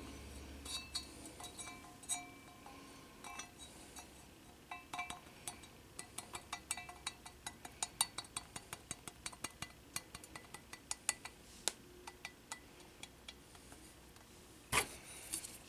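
Small clicks, taps and clinks as a rubber gasket is worked onto a cast-metal camera mounting base by hand, some with a short metallic ring, thickening into a quick run of ticks midway, with one louder knock near the end.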